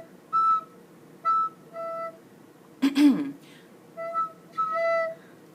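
A recorder playing short separate notes of a melody phrase. Midway there is a brief rough sputtering noise with a falling pitch, which the player puts down to spit in the recorder.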